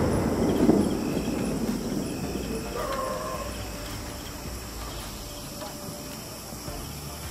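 The sound of a sky-shot aerial firework's burst dying away: a noisy rumble and hiss that fades over the first two seconds or so as the shell's stars fall, leaving faint background with a brief faint call about three seconds in.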